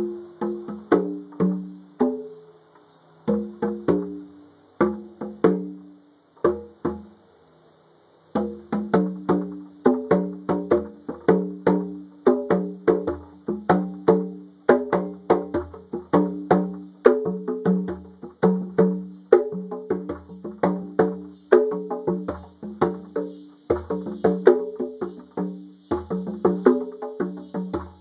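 A pair of conga drums played with bare hands in a steady rhythmic pattern of ringing open tones at a few pitches, with a short lull about six seconds in before the playing picks up again and runs on without a break. Cicadas buzz faintly and steadily behind the drumming.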